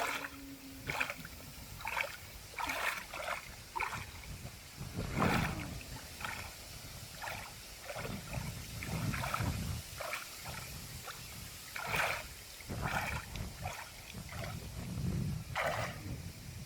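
Water splashing and sloshing in irregular bursts, with several heavier, deeper surges of water.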